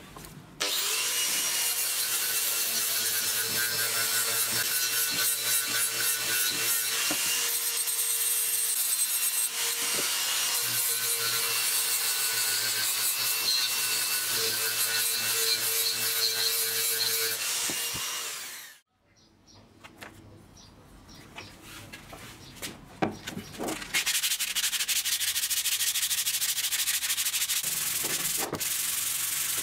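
A power sander runs steadily against a wooden axe handle, a constant motor hum under the hiss of abrasive on wood, then winds down and stops about two-thirds of the way through. After a few quieter seconds of scattered scrapes, the handle is hand-sanded with sandpaper, a steady rubbing.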